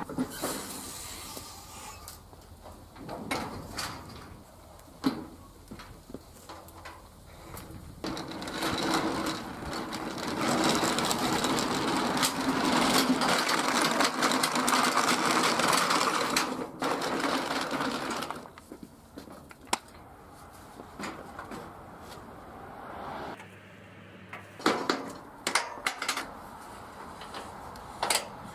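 Small dolly wheels rattling over asphalt as an aluminum dock section is rolled along, loudest in a long stretch near the middle, with scattered sharp knocks of the aluminum frame near the end.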